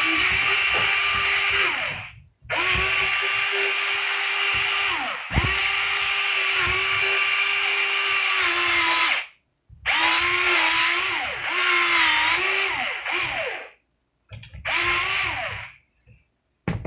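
Electric pencil sharpener's motor whining as a wooden pencil is ground in it, in about five runs of a few seconds each with short pauses between, its pitch dipping now and then.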